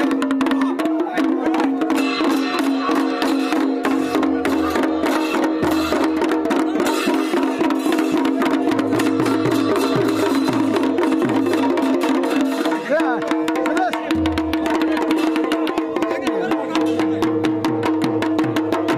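Pahadi folk drumming: a dhol and several small damau kettle drums beaten with sticks, with large hand cymbals clashing in time. Fast, dense strokes over a steady droning tone.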